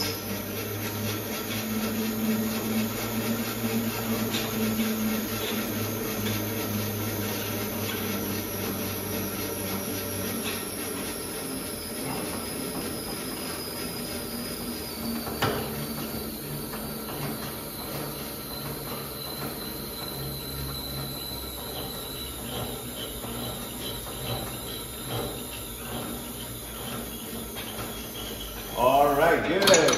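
Monark Peak Bike ergometer's weighted flywheel spinning against its friction belt during an all-out 30-second Wingate sprint, a steady whirring whine that slowly falls in pitch as the rider's pedalling rate drops with fatigue. A single sharp click about halfway through.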